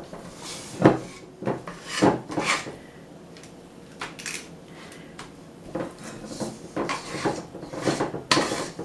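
Metal cookie scoop scraping and clinking against a stainless steel mixing bowl as cookie dough is scooped out, in several separate strokes, the busiest stretch near the end.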